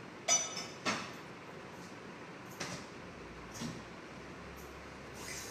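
Two sharp clinks close together, the first briefly ringing, then two fainter knocks, over a faint steady hiss: small objects handled while decorating a cake.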